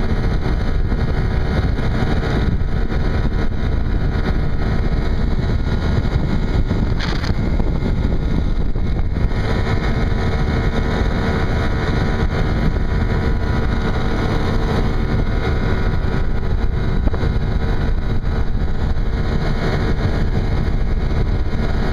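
Force 25 two-stroke outboard motor running steadily at speed, driving an inflatable boat, with wind rumbling on the microphone.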